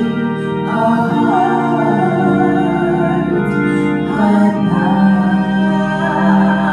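Hammond organ holding sustained hymn chords while a woman sings the melody over it. Her voice comes in about a second in and again around four seconds.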